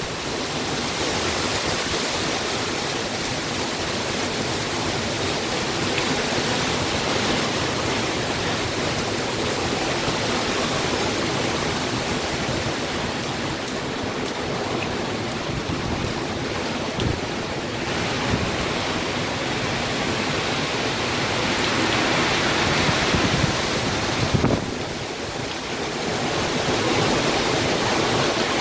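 Hurricane wind and rain: a loud, steady rushing noise that swells and eases in gusts, with a few low thumps of wind hitting the microphone near the end.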